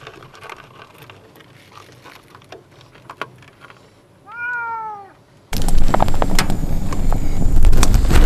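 A domestic cat meows once, a short rising-then-falling call about four seconds in. About a second later a loud rustling noise with crackles sets in suddenly and carries on to the end, louder than the meow.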